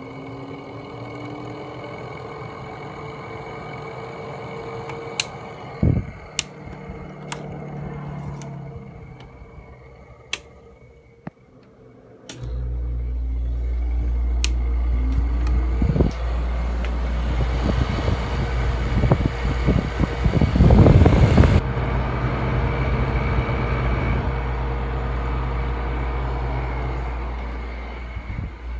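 Zenith 5,000 BTU window air conditioner running: a fan hum with some sliding tones and a few sharp clicks, then after a brief lull a much louder deep hum sets in suddenly about twelve seconds in, as the compressor starts, and carries on with the fan and a rush of air.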